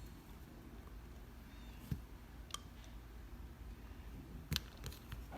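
A few light, scattered clicks and taps as chocolate chips are placed on top of cake batter in a ceramic mug, over a faint quiet background.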